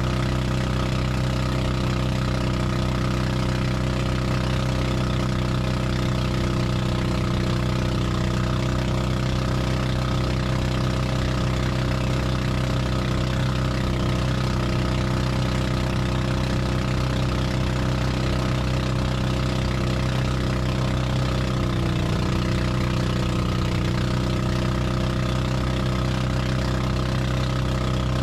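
Pump boat's engine running steadily under way, a constant droning hum. The pitch wavers briefly about three-quarters of the way through.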